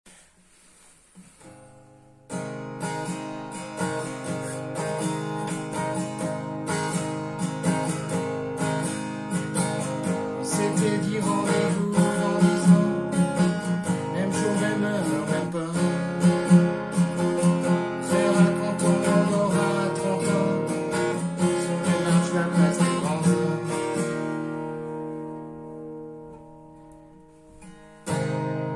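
Acoustic guitar strummed in the 'campfire' rhythm, steady strokes over ringing chords. It starts about two seconds in, dies away from about 24 seconds, and a new strummed passage starts just before the end.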